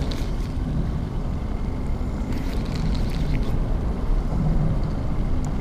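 Steady low rumble of wind buffeting the microphone aboard a small open skiff, with faint brief hissing near the middle.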